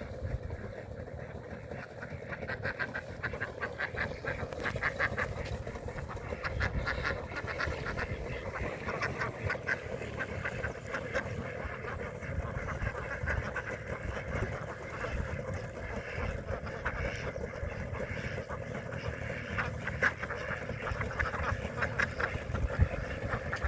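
A group of ducks quacking, with rapid runs of quacks one after another, over a steady hum.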